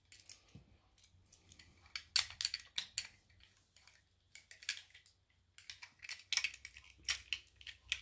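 Light, scattered clicks and rattles of a Burg Wachter Sapphire laminated steel padlock, with its plastic weather cover, being handled after it has been picked open. The clicks come in small clusters with short gaps between them.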